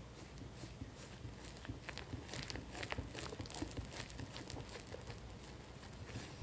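Kitchen handling sounds: a run of light, irregular clicks and scrapes of utensils and ingredients being worked, busiest in the middle.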